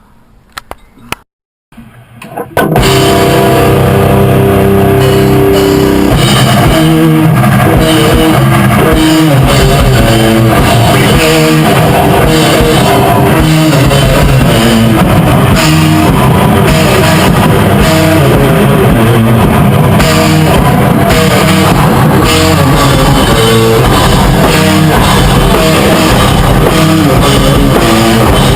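Rock band playing guitar and drum kit at full volume, cutting in suddenly about two and a half seconds in after a near-silent gap.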